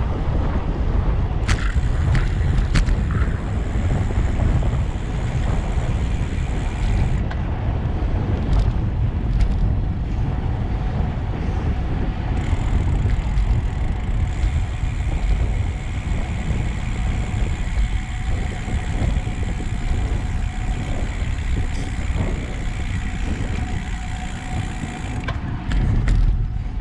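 Steady wind rumble on the microphone of a handlebar-mounted camera on a road bike while riding, with a few light clicks about two seconds in and again near the end.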